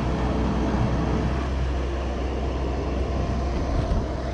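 Steady low engine drone, an engine running without change in speed.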